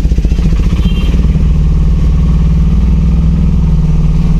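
Small vehicle engine running steadily with a rapid, even chugging as the vehicle moves slowly along, heard from inside its cab. A brief high squeak about a second in.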